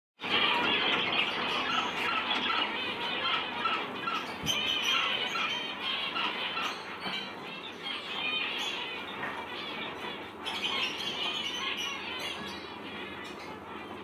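A roomful of caged zebra finches calling at once: a dense, continuous chatter of short, overlapping chirps.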